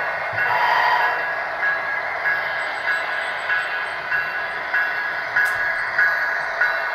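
Diesel locomotive sound from an approaching HO-scale model train: a steady drone with a regular beat about every 0.6 s.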